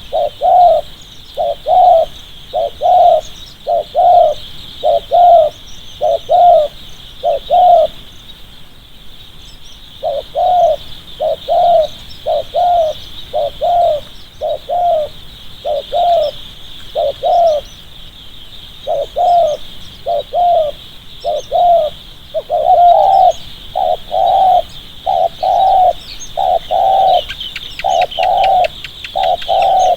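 Spotted dove cooing in quick repeated notes, about two a second, in long runs broken by short pauses about 8 and 18 seconds in. A steady high-pitched hiss runs behind it.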